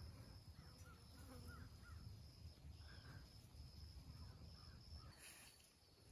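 Near silence in open brush: faint bird calls, a handful of short rising-and-falling notes in the first half, over a low rumble.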